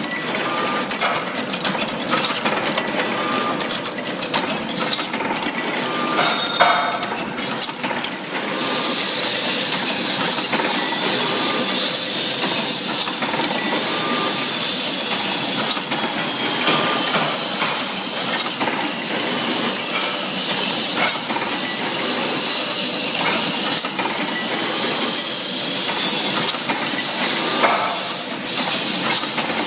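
Automatic wire hanger making machine running: a steady clatter of clicks and knocks from its wire feeding, bending and twisting mechanism. A loud high hiss joins about eight seconds in and carries on.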